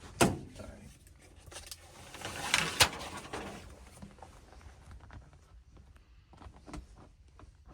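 Hands working sheets of Kilmat sound-deadening mat onto a car's bare floor pan: a sharp smack just after the start, a rustle with two sharp clicks around the middle, then scattered light taps and rustles.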